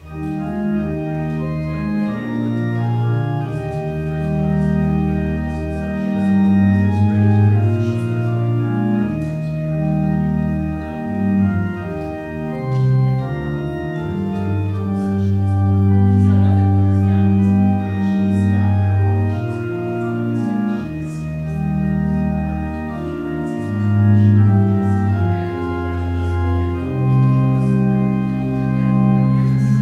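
Organ playing slow, sustained chords in a hymn-like piece, starting suddenly right at the outset.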